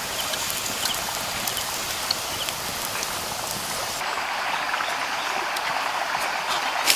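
Wood campfire crackling under fish grilling on a stick rack: a steady sizzling hiss with scattered small pops. About four seconds in, it cuts abruptly to a duller, steady outdoor background hiss.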